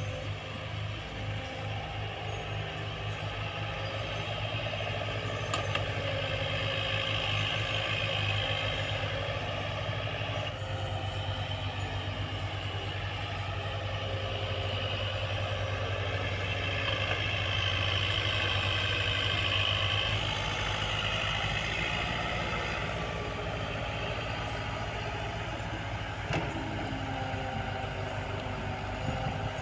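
Diesel engine of heavy earthmoving equipment running steadily, with a higher-pitched whine that swells a few seconds in and again past the middle.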